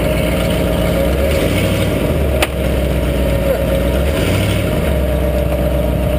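Ford pickup truck's engine running steadily after a cold start, heard close from beneath the truck; its low note shifts briefly twice. A single sharp click sounds about two and a half seconds in.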